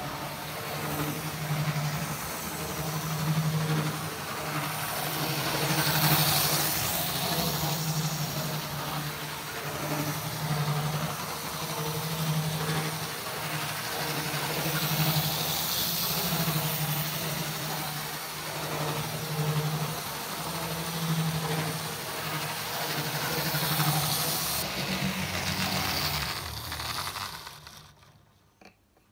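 Tri-ang R.357 Class 31 model diesel locomotive running on OO gauge track: its electric motor and wheels give a steady, pulsing hum over a hiss. It stops about 27 seconds in.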